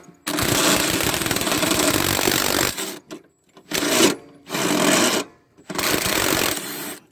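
Impact wrench hammering on a bolt in rapid rattling bursts: one long run of about two and a half seconds, then three shorter bursts.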